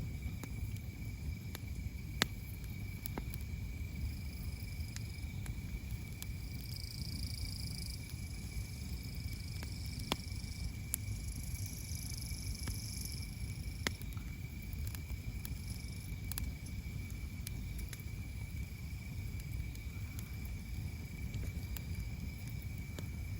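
Wood campfire burning, with occasional sharp crackles and pops over a low rumble, and a steady high thin tone alongside.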